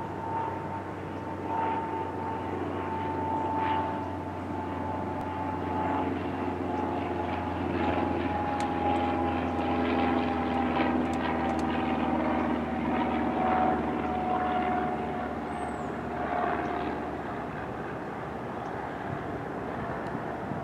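Cessna Citation Latitude's twin Pratt & Whitney PW306D1 turbofans whining on landing approach, a steady high whine that falls slowly in pitch over a low rumble.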